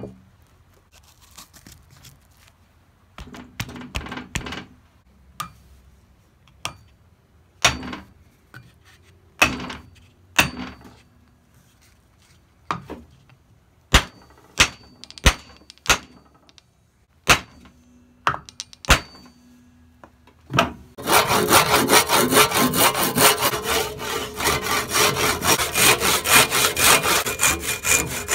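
A handful of sharp knocks and clicks, then about two-thirds of the way in a handsaw starts sawing steadily through the hickory axe handle, quick back-and-forth strokes trimming the handle end flush with the axe head.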